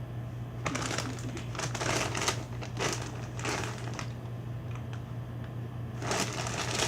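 Crunching and crinkling from a snack of crispy potato bites and its bag being handled and eaten, in irregular crackly bursts for about three seconds, then again near the end.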